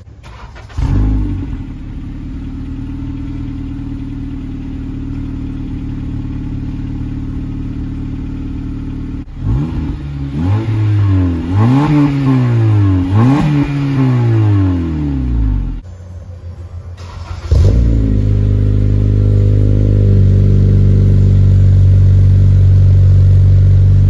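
Honda Civic Si's 2.4-litre four-cylinder starting cold about a second in and idling steadily through a new 3-inch cat-back exhaust. About nine seconds in, a cut to the car on its stock exhaust, revved several times with the pitch rising and falling, then back to the new exhaust, idling louder and steadily near the end.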